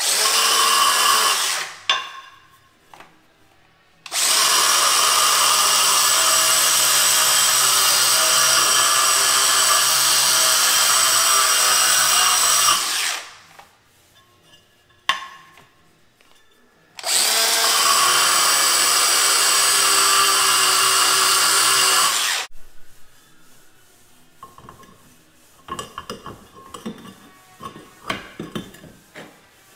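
High-speed power tool grinding ceramic tile in three runs: a short one at the start, a long one of about eight seconds, and another of about five seconds. Scattered handling clicks and knocks in the pauses and near the end.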